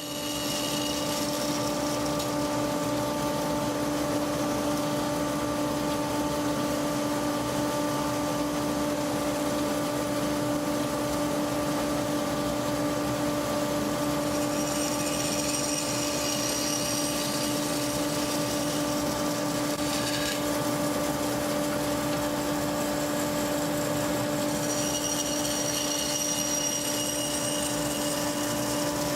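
Woodworking bandsaw with a half-inch (12 mm) blade running with a steady hum while cutting a shape in wood, with two stretches of higher-pitched cutting sound partway through and near the end, and a brief sharp sound in between.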